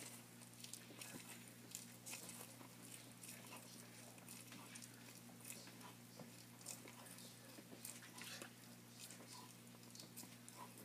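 A tortoise biting and chewing shredded yellow food, heard as faint, irregular little crunches and clicks over a steady low hum.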